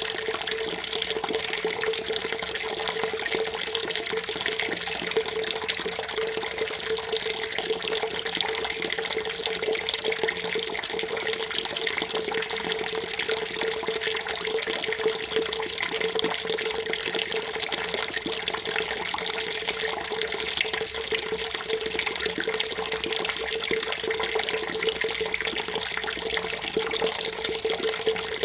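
Water running and splashing steadily and unbroken, with a constant low hum-like band beneath it.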